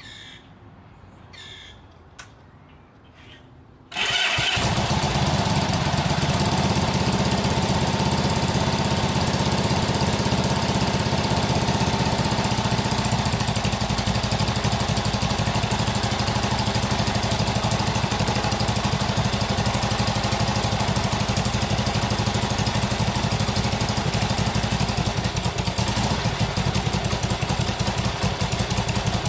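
1967 Honda CB77 Super Hawk's 305 cc parallel-twin engine firing up about four seconds in, then idling steadily. The owner says it is running very rich.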